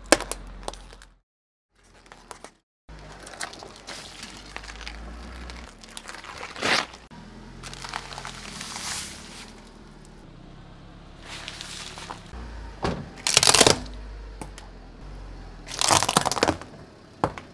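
A car tyre rolling over small plastic objects and crushing them one after another: a series of sharp cracks and crunches of breaking plastic and crinkling foil over a low rumble. The loudest cracks come about two-thirds of the way in and near the end.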